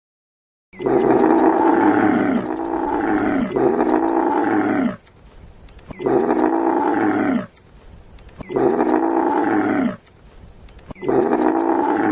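An animal calling loudly: a long call in three parts, then a run of shorter calls about every two and a half seconds, each dropping in pitch at the end.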